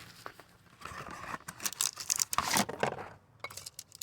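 Irregular rustling and crinkling with light clicks and scrapes as a new oil filter is handled by hand under a car, busiest from about a second in until near three seconds.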